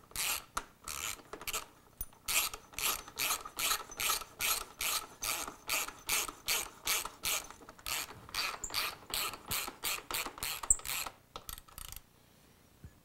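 Hand ratchet wrench worked in quick, even back-and-forth strokes, about three a second, tightening a bolt on a dirt bike during reassembly; the strokes stop about twelve seconds in.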